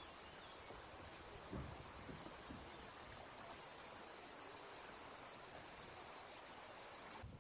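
Steady high-pitched buzzing chorus of cicadas, with a soft low thump about a second and a half in. The buzzing drops away abruptly just before the end.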